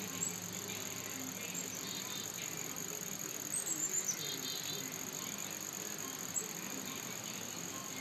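Steady high-pitched insect chorus trilling without a break, with a few short high chirps from a bird, the loudest a quick run of about five about three and a half seconds in and a single one near six and a half seconds.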